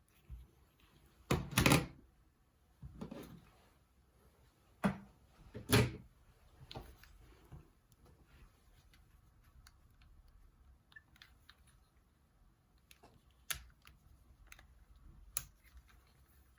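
Irregular clicks and knocks from a Nokia 6260 mobile phone being handled and its keys pressed, with the loudest knocks about a second and a half in and again about six seconds in.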